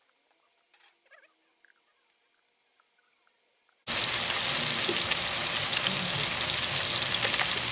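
Near silence with a few faint chirps, then about four seconds in a sudden start of loud, steady sizzling: snapper fillets frying in melted butter in a pan.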